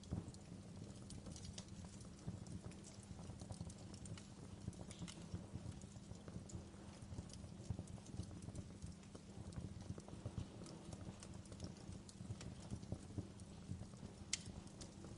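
Wood fire crackling, with scattered snaps and pops over a steady low rumble of flame; a sharper pop comes near the end.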